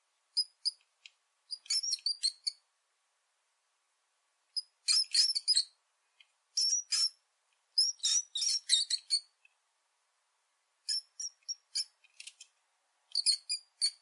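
Small rodent squeaking: repeated bursts of quick, high-pitched squeaks with short pauses between.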